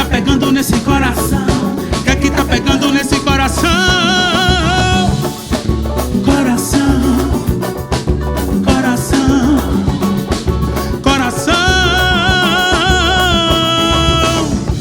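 Instrumental break of an upbeat Brazilian pop song: a steady drum-kit and bass beat, with a lead line that holds long, wavering notes twice.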